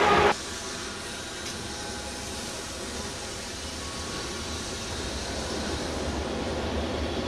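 Loud rushing noise of a departing ICE high-speed train, cut off abruptly about a third of a second in. It gives way to quiet, steady rail-yard background: a low hum with hiss that slowly grows louder.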